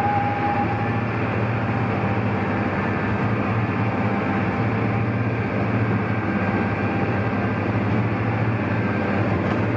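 A sightseeing boat's engine droning steadily under way, heard from inside the enclosed passenger cabin, with water rushing and spraying against the hull.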